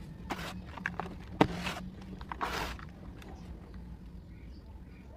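Hands crushing and crumbling dry, powdery reddish clay dust in a plastic tub: several soft gritty crunches and rustles, one with a sharp click, in the first three seconds, then fainter crumbling. A steady low hum runs underneath.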